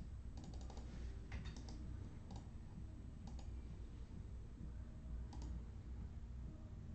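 Light clicks and taps over a low steady hum: a quick run of clicks in the first two seconds, then single clicks a second or two apart.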